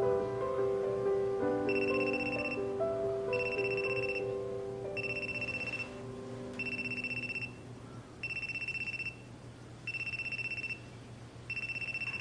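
An electronic telephone ringing: a trilling tone about a second long, repeating about every second and a half, seven times, starting a couple of seconds in. Soft background music fades out under it over the first half.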